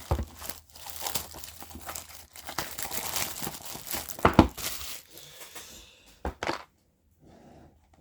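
Packaging of a speedcube box being torn and crinkled open for about five seconds, with a sharp knock near the end of the crinkling and two short clicks after it.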